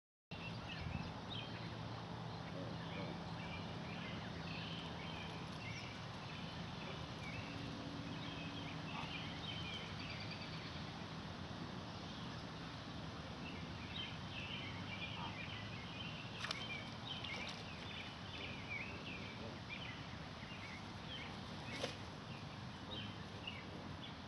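Many short, high bird chirps and peeps over steady outdoor background noise, with a faint low hum in the first half. Two sharp clicks stand out, about two-thirds of the way through and again near the end.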